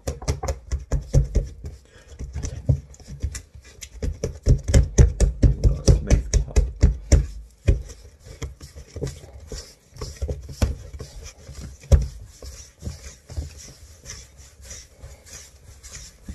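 Bread dough being shaped by hand on a kitchen worktop: a quick run of dull thumps as the dough balls are worked against the counter. About eight seconds in it turns to softer rubbing and scraping of hands and dough on the surface.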